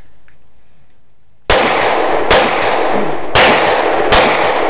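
Pistol shots in an action pistol stage: four sharp shots in two pairs, the first about a second and a half in, each followed by a long echo.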